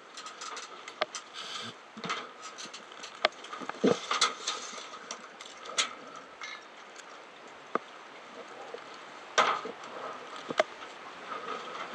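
Scattered, irregular clicks and knocks, a few of them louder, over a faint steady hiss.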